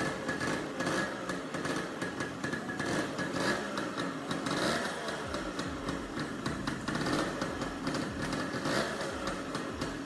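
Modified Yamaha RX 135's single-cylinder two-stroke engine running just after being kick-started, with a dense, uneven firing beat whose pitch wavers a little.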